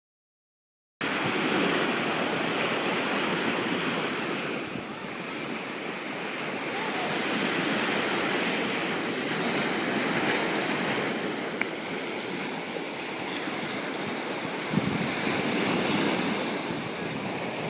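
Ocean surf washing onto a beach in steady swells, with wind buffeting the microphone. It cuts in abruptly about a second in.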